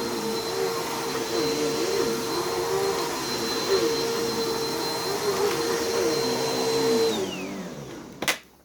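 Bissell CleanView Rewind bagless upright vacuum running on carpet, its 8-amp motor giving a steady high-pitched whine. It is switched off about seven seconds in and its pitch falls as it spins down, followed by a sharp click near the end.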